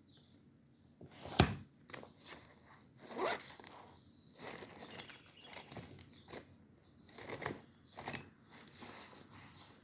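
Desk-work handling sounds: scattered rustles of paper and stationery being handled, with one sharp tap about a second and a half in.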